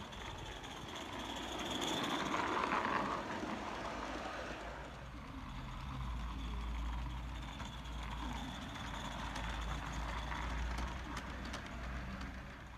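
A small live-steam garden locomotive, an Accucraft Ruby, and its freight cars running past on the track. A rush of steam and wheel noise swells about two seconds in, then settles into a steady low rumble of the cars rolling by, with a few light clicks near the end.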